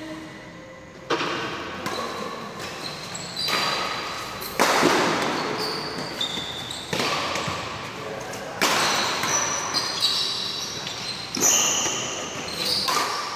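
A badminton rally: about six sharp racket strikes on a shuttlecock, a second or two apart, each echoing through the hall, with shoes squeaking on the court floor between shots.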